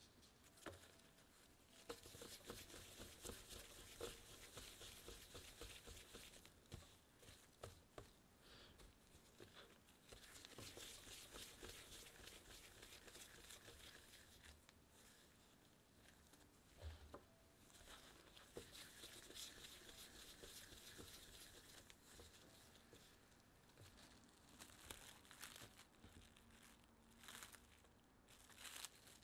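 Faint rustling and crinkling from gloved hands rounding pieces of bread dough on a countertop and handling plastic wrap, in bouts of a few seconds separated by short pauses and small taps.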